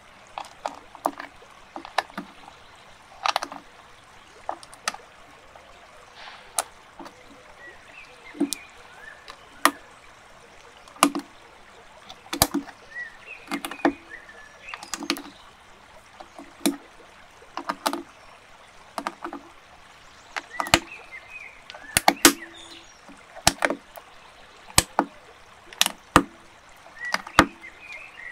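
Plastic building bricks being handled and pressed together: sharp, irregular clicks, roughly one or two a second, some with a duller knock.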